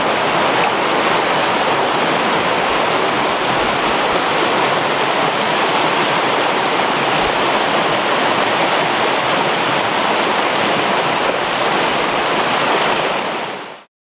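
A fast-flowing stream rushing over rocks: a steady, loud rush of water that fades out quickly near the end.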